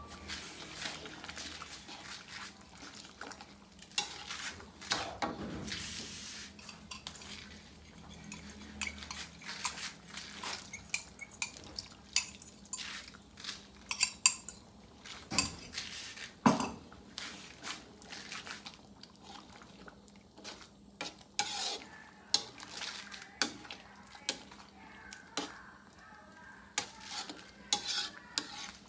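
A spatula stirring thick stew in a metal wok, scraping and knocking irregularly against the pan's sides and bottom.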